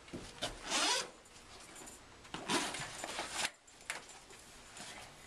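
Zipper on a kayak storage bag being pulled open in two strokes, a short one and then a longer one about two seconds later.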